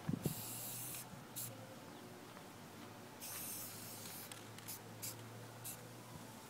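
Aerosol spray paint can spraying in bursts: a longer hiss about half a second in, another around three seconds in, then several quick short spurts.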